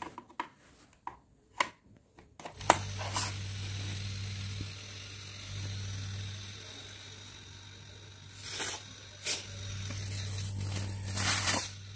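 Wanbao refrigerator compressor starting after a few sharp clicks about two and a half seconds in, then running with a steady low hum. A few more clicks from the wiring at the terminals come near the end.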